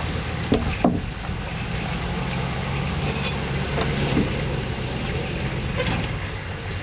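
Pickup truck engine running steadily while towing an ice-fishing hut on a wagon, with two sharp knocks about a second in.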